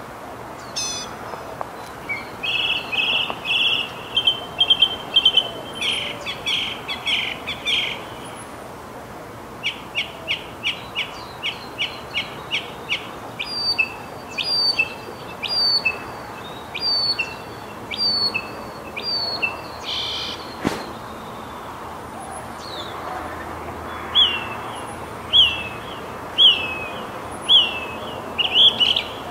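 Northern mockingbird singing a long series of varied phrases, each repeated several times before it switches to the next. A fast run of notes comes first, then a string of sharp chips, then single down-slurred whistles about once a second, a short harsh note about two-thirds of the way through, and a final run of quick falling notes.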